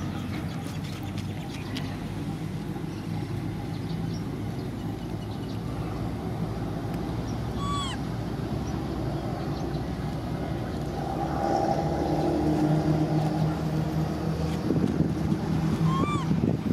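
Steady hum of a motor engine running, growing louder from about eleven seconds in, with two short high squeaks, one near the middle and one near the end.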